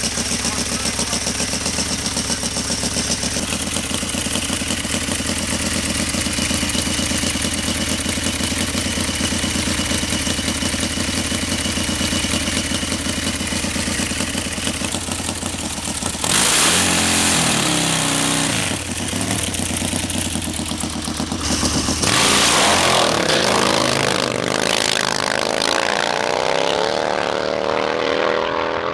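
Harley-Davidson drag-racing motorcycle's V-twin engine running at a steady, pulsing idle, then revved hard a little past halfway and again in the last several seconds, its pitch rising and falling.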